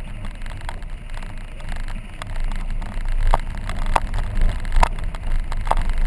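A car driving slowly on a rough dirt road: a steady low rumble of tyres and body over the ground, with a few sharp clicks or knocks, most of them in the second half, like gravel striking or something rattling.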